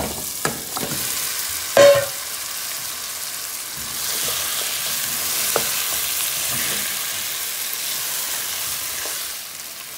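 Fried chicken pieces tipped from a steel bowl into a pot of masala in hot oil: a few knocks of metal on the pot, the loudest a ringing clank just under two seconds in. Then the chicken sizzles as it is stirred with a spatula, the hiss swelling about four seconds in.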